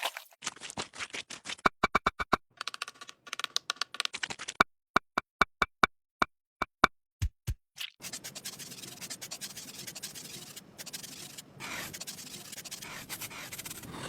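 A run of short sharp taps and clicks, some in quick clusters and then evenly spaced, from small hand work on a miniature build, followed about eight seconds in by a steady scraping and rubbing, like sanding.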